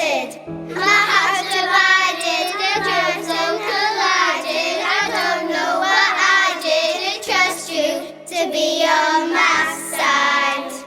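A child singing a slow pop song in phrases with vibrato over a backing track of held chords. The voice stops right at the end, leaving the accompaniment.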